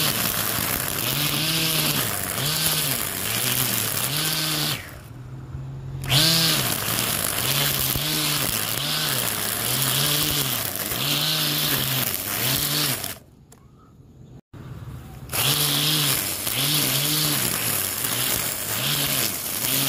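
Battery-powered grass trimmer, converted to spin plastic nylon cutting line, running and cutting grass: the motor whine rises and falls about once a second as the line bites into the grass, with bursts of hiss from the cut grass. It drops away briefly about five seconds in and goes nearly quiet for about two seconds past the middle.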